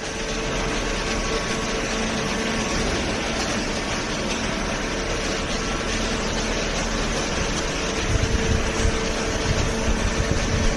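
Hydraulic baling press running: a steady machine hum with a constant tone over a noisy motor-and-pump drone, with uneven low rumbling from about eight seconds in.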